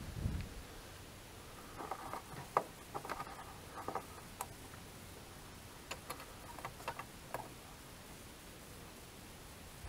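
Scattered light clicks and rattles of a halogen headlight bulb being handled and fitted into its plastic headlight housing, with a dull bump right at the start.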